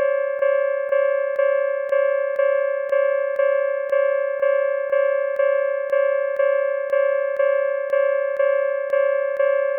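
Japanese railroad crossing warning bell sounding its steady "kan-kan": a single ringing tone struck about twice a second, each strike fading before the next.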